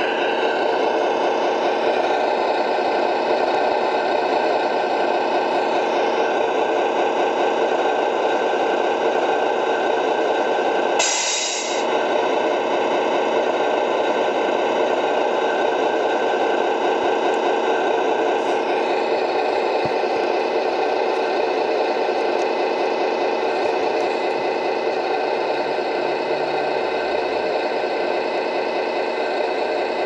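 Simulated diesel truck engine sound from the Tamiya Scania R620 RC truck's MFC-03 sound unit, running steadily through its small speaker, with a short hiss about eleven seconds in.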